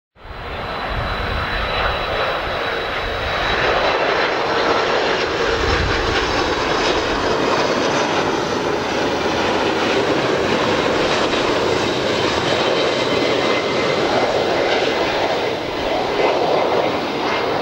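Jet engines of an Airbus A330-300 airliner coming in to land: a loud, steady rush of engine noise with a thin high whine above it.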